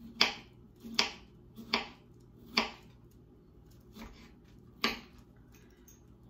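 Knife slicing a peeled kiwi on a wooden cutting board, each cut ending in a sharp tap of the blade on the board: six taps, mostly a little under a second apart.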